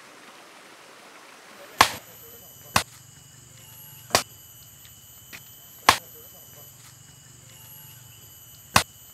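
A long-handled hand tool striking down in repeated chopping blows: five sharp strikes, spaced unevenly a second or two apart, with a faint steady high-pitched drone behind them.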